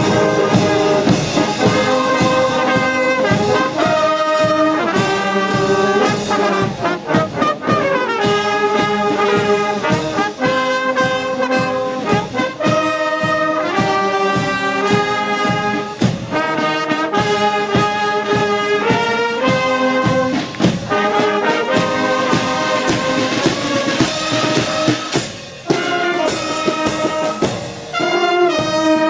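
Marching brass band playing, trumpets and trombones carrying the tune over a steady drumbeat.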